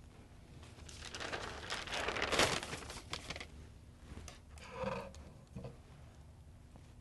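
A sheet of protective paper crinkling and rustling as it is handled and spread over a heat press platen, loudest about two and a half seconds in. A short squeak follows about five seconds in.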